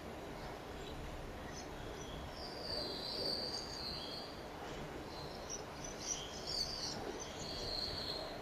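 High-pitched trilling chirps that come and go, loudest in two long spells in the middle and second half, over a steady low rumble.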